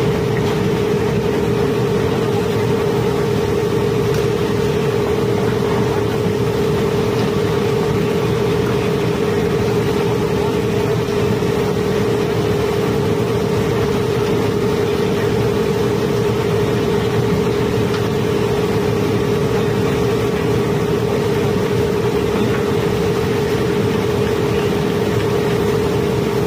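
Barge cobblestone-unloading machinery running steadily: a constant hum over a dense, even rushing rumble as cobblestones feed from the pile onto the conveyor in the trough.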